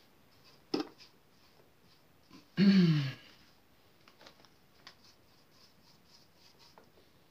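A short voiced sound from a person, falling in pitch and lasting about half a second, about two and a half seconds in; it is the loudest sound. A sharp click comes about a second in, with faint light taps and rustles scattered around it.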